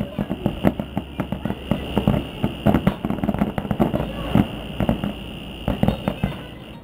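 Aerial fireworks shells bursting in a rapid run of bangs and pops, several a second, thinning out near the end, over a steady high-pitched tone.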